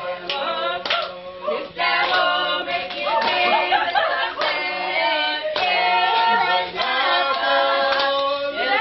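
A group of voices singing together, with hand claps keeping time.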